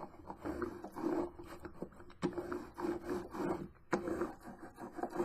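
Hand roller run back and forth over cardstock freshly glued onto a chipboard cover, pressing the paper down into the wet glue: a repeated rolling rub, roughly one stroke a second.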